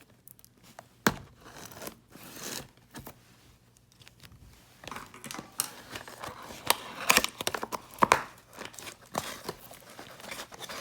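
Plastic wrapping on a trading-card box being cut and torn open, crinkling. There is a sharp click about a second in, and a busier run of tearing and crinkling in the second half.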